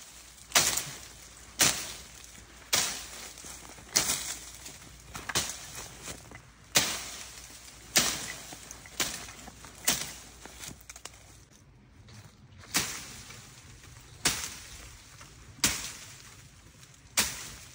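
Leaves and branches rustling and swishing as hikers push through dense brush on an overgrown trail, mixed with their footsteps. Each swish starts sharply and fades, about one a second, with a short pause about two thirds of the way through.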